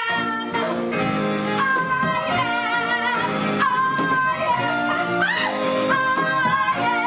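Musical-theatre accompaniment playing under a woman's high, wordless singing: held notes with vibrato and a quick upward swoop about five seconds in.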